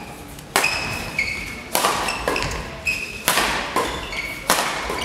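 Badminton rally: rackets strike the shuttlecock about once a second, each sharp smack echoing in the hall. Short high squeaks of shoes on the court floor come between the hits.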